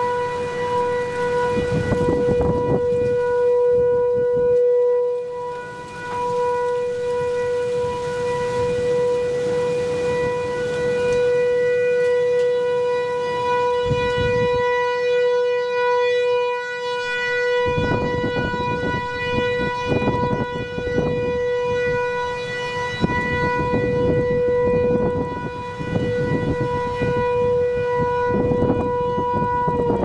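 Federal Signal 508 rotating outdoor warning siren sounding a steady single tone during its test. Gusts of strong wind buffet the microphone, hardest in the second half.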